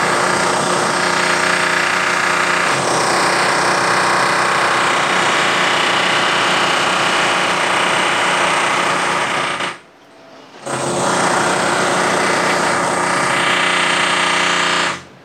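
Loud renovation drilling: a power tool hammering steadily for about ten seconds, then briefly stopping and running again for another four seconds before cutting off.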